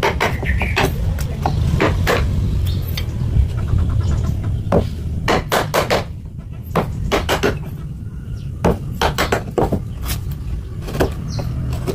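Hammer strikes in irregular clusters of sharp knocks, over a steady low rumble.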